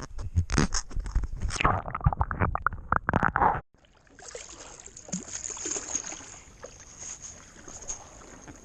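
Water splashing and knocking around a kayak, loud and irregular, cut off abruptly after about three and a half seconds; then a softer, steady wash of water.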